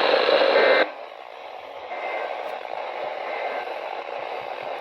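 Radio static hiss from a weather radio receiver, dropping sharply to a much fainter hiss under a second in.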